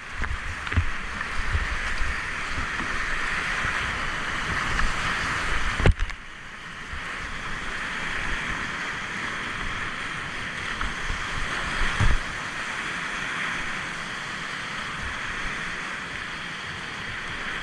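River water rushing steadily. Wind buffets the microphone with low rumbles for the first six seconds. A sharp knock comes about six seconds in, where the sound drops, and another knock about twelve seconds in.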